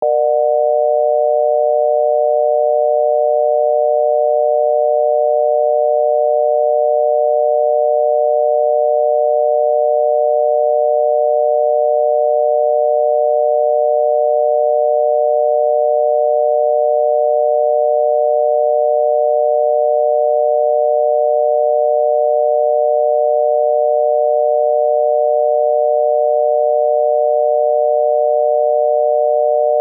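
Obsolete US telephone dial tone: a 600 Hz tone amplitude-modulated by 133 Hz, giving one steady, unbroken buzzy hum. It signals that the exchange is ready to receive a dialled number.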